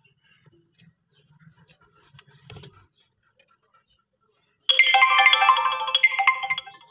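Faint handling clicks and rustles, then about two-thirds of the way in a children's battery-powered ride-on motorbike's built-in sound module plays a loud electronic jingle, which tapers off near the end.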